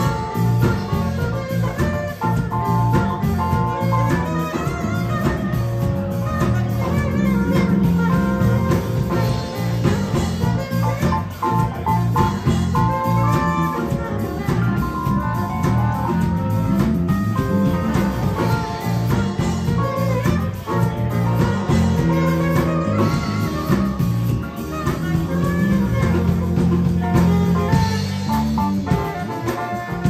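Live band playing an instrumental R&B/jazz tune: saxophone over keyboard, electric bass guitar and drum kit, with a steady beat.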